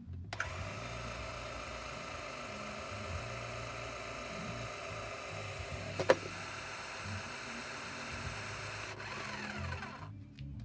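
A small electric motor, likely a power tool, running at a steady whine for about ten seconds, with one sharp click near the middle. Near the end it winds down, the pitch falling as it stops.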